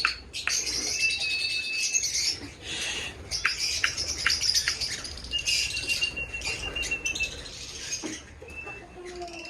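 Many small aviary birds chirping and twittering together at a high pitch. A thin, steady whistle is held twice, once for about a second and once for about two seconds, with a few sharp clicks about four seconds in.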